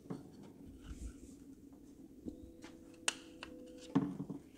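Light clicks and rustling as a metal fuel rail with its fuel injectors is handled over shop towels, with one sharper click just past three seconds in. A faint steady hum comes in about two seconds in and stops about four seconds in, with a brief louder low sound at that moment.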